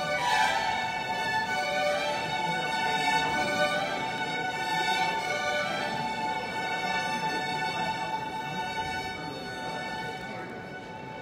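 String orchestra of violins and cellos playing held, bowed notes, growing softer over the last few seconds.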